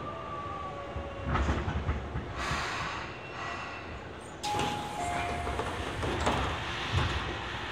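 Inside a Tobu 20070-series subway car standing at a station with its doors open: steady station and cabin noise with some knocks. About four and a half seconds in, the noise steps up and a brief two-note tone sounds.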